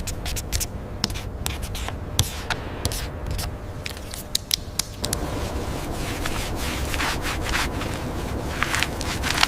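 Rubbing and scraping, with many sharp clicks and taps scattered through; the scraping gets louder about halfway through.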